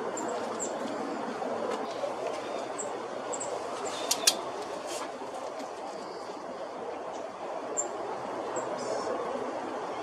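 Scattered short, high bird chirps over a steady rushing background noise, with two sharp clicks close together about four seconds in.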